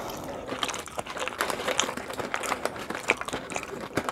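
Close-up eating sounds: a paper food wrapper crinkling and crunchy food being chewed, a steady stream of small crackles and clicks.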